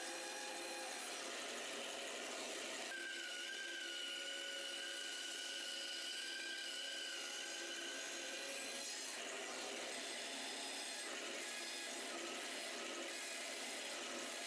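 Band saw running and cutting a curved outline in a reclaimed cedar board: a steady whir, with a higher whine from about three to nine seconds in.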